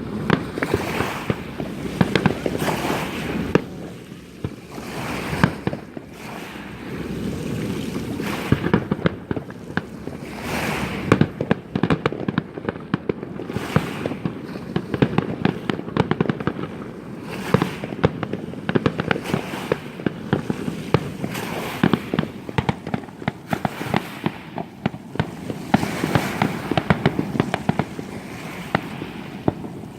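Fireworks display: a dense, rapid string of bangs and crackles going on without a break, swelling into louder volleys several times.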